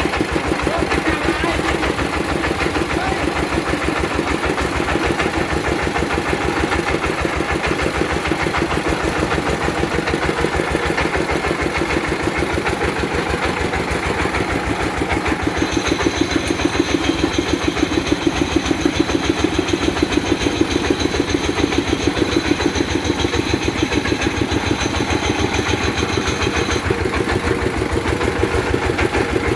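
Well-drilling rig's engine running steadily with fast, even firing pulses. A thin high whine joins in about halfway through and stops a few seconds before the end.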